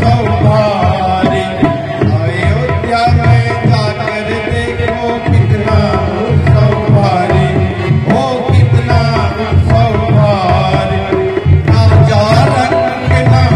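A man singing a Hindi devotional bhajan through a microphone and PA, with tabla drums keeping a steady rhythm under the melody.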